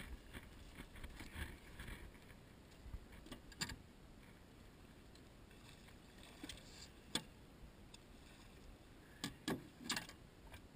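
A few sharp knocks and clinks of fishing gear against a small aluminum boat while a hooked striped bass is being landed. One knock stands out about seven seconds in, and a quick cluster of three comes near the end.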